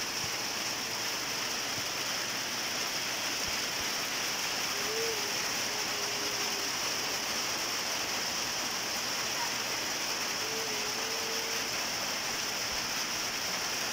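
Steady rain falling on leafy trees, an even, unbroken hiss.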